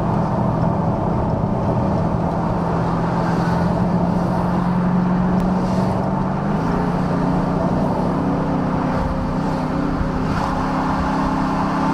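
Dodge Charger Scat Pack's 6.4-litre 392 Hemi V8 droning steadily while cruising, heard from inside the cabin over road noise. The drone rises slightly in pitch about six and a half seconds in.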